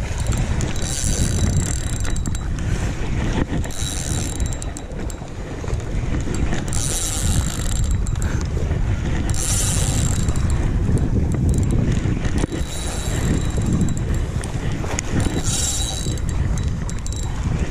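Fishing reel working in short bursts of about a second, half a dozen times, over a steady rumble of wind on the microphone.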